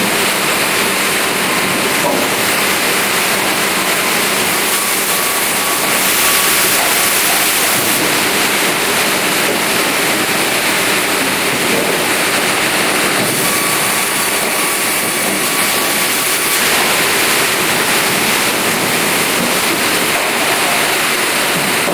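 OHI MCC-type vertical twin-table band saw running and sawing timber: a loud, steady rushing noise of the blade and machine, with a faint thin whine at times.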